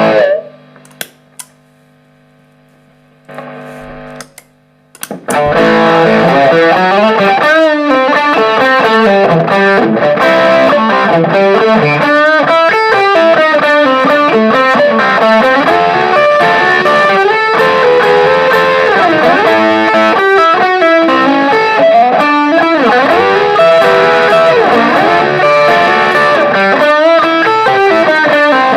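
Electric guitar through a Marshall JCM900 valve amp driven by overdrive and boost pedals. A phrase cuts off at the start, leaving steady amp hum and a few sharp clicks for about five seconds. Then a loud, distorted lead line with string bends comes in and runs on.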